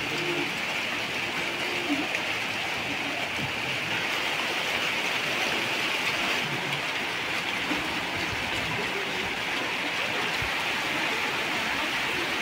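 Steady heavy rain pouring down, an even hiss.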